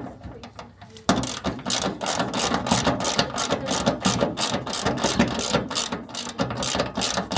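Ratchet socket wrench clicking rapidly, about five clicks a second, starting about a second in.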